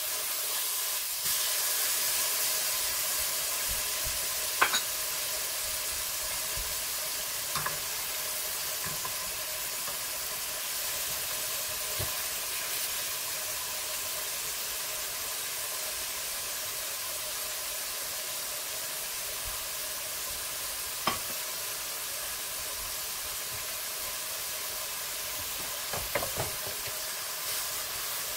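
A beef steak frying with beech mushrooms, poblano pepper and other vegetables in a nonstick frying pan: a steady sizzle, with a few sharp taps and clicks scattered through.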